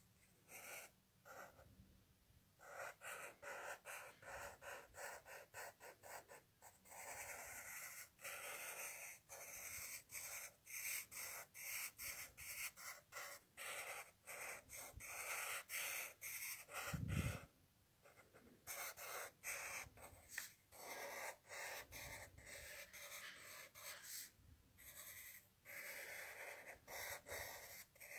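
Pen scratching on paper in quick short strokes, several a second, with a few brief pauses. A single low thump about two-thirds of the way through.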